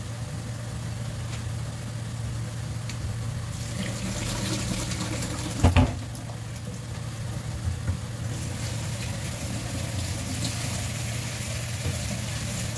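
Water running from a kitchen tap over a steady low hum, with one sharp knock about halfway through.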